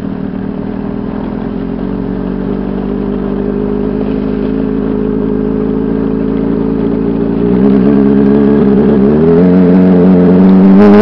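Engine of a ridden motor vehicle running steadily and getting louder, then revving higher twice in the last few seconds as it accelerates.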